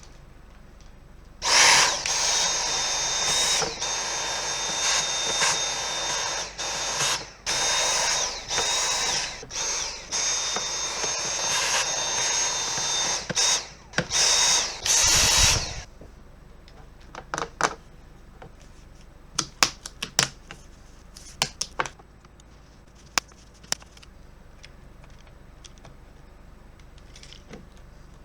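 A small electric power tool running with a steady high whine, switched on and off in a string of bursts. It stops about halfway through, and scattered sharp clicks follow.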